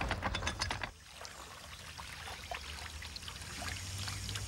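Canal lock paddle gear being wound open with a windlass, its ratchet pawl clicking rapidly for about a second. Then water runs faintly into the lock through the opened paddle, trickling and swirling.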